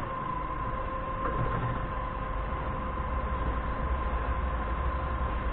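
Doosan 4.5-ton forklift engine idling with a low, steady rumble, and a steady high whine running over it.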